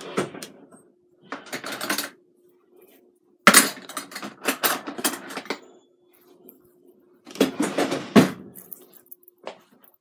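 Small metal pieces clinking and jangling in three bursts a second or two long, with a single click near the end. A faint steady hum runs underneath.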